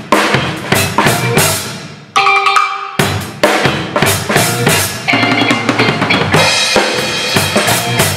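Drum kit played with wooden sticks, bass drum, snare and cymbals in a busy groove over a backing track. About two seconds in the drums break off briefly while the backing track's held notes carry on, and the kit comes back in about a second later.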